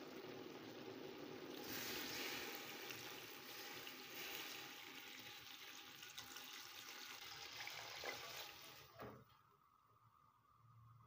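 Water poured from a jug into a steel pot of chicken pieces, splashing as the pot fills; the pouring stops about nine seconds in.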